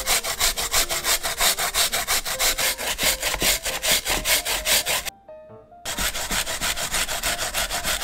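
Potato and onion grated by hand on a plastic box grater: quick back-and-forth rasping strokes, about five a second. The strokes stop briefly about five seconds in, then start again.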